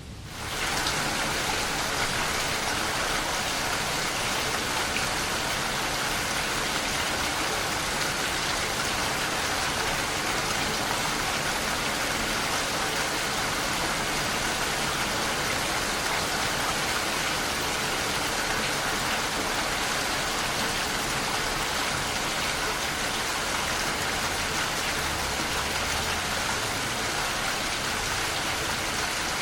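Steady rain falling, an even hiss with no thunder, coming in over about half a second at the start.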